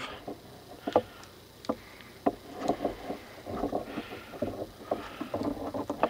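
Leatherman Rebar multi-tool's wire cutters biting into a thick insulated copper appliance cord: several sharp clicks with creaking and rustling of the tool and cord in between, as one side of the cord is cut through.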